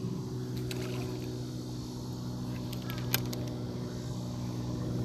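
A small fishing boat's motor running with a steady, even hum. A few faint clicks come about three seconds in.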